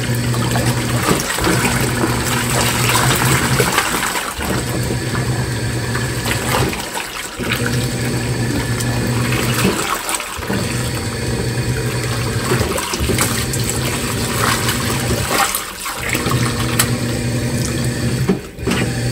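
Washing machine in its wash cycle: the drum motor hums in spells of about three seconds with short pauses between as the drum turns one way and then the other, while water and clothes slosh inside.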